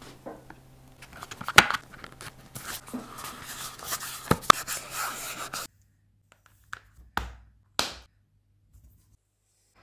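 Hands pressing and rubbing a leather panel down onto a phone case: scratchy rustling with a few sharp clicks, which stops abruptly. Then two short soft knocks in near quiet.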